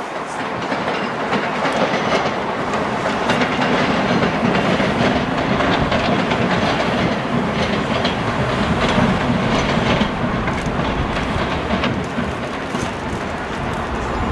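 Passenger train running on the station tracks: a steady running noise with scattered clicks of wheels over rail joints.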